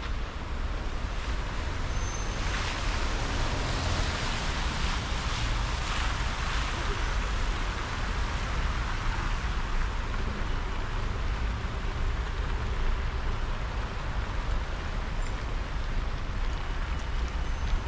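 City street traffic: a steady low rumble of road traffic, with the tyre hiss of a vehicle passing, swelling and fading between about two and seven seconds in.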